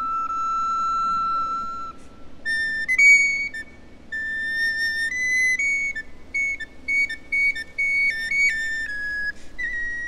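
Solo soprano recorder playing a melody: one long held note for about two seconds, then after a short break a run of quick, short high notes hopping up and down.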